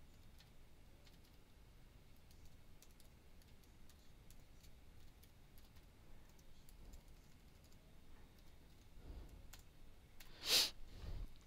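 Faint, scattered keystrokes on a computer keyboard as code is typed, with a brief louder puff of noise near the end.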